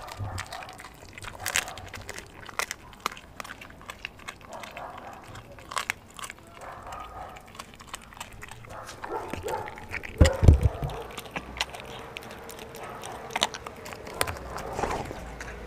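Dog chewing and crunching raw chicken with bone, many short wet crunches and clicks from teeth on meat and bone. The loudest moment is a deep thump about ten seconds in.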